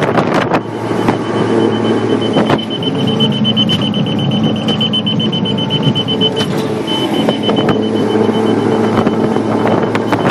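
1999 Mercury 200 V6 outboard running steadily at speed, with a high electronic alarm tone over it that beeps, then holds, and breaks off briefly past the middle. Going by the driver's remarks about the alarm and the water depth, this is the boat's depth alarm warning of shallow water.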